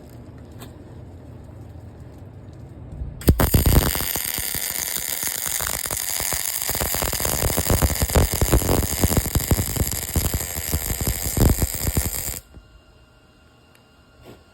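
Welding arc crackling steadily for about nine seconds as a bead is run, starting abruptly a few seconds in and cutting off suddenly near the end as the arc is broken. Before it there is a low hum.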